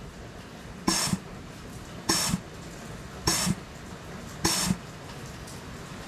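Four short bursts of compressed air blown into a Ford 6R80 automatic transmission's clutch passage, about a second apart, each with a clunk as the clutch applies and resets: an air check showing the clutch resets every time.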